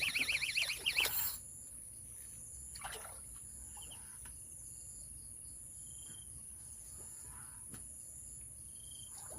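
A loud, rapidly warbling call that cuts off about a second in. Then quiet outdoor ambience: a steady high insect hum and a few faint short bird chirps.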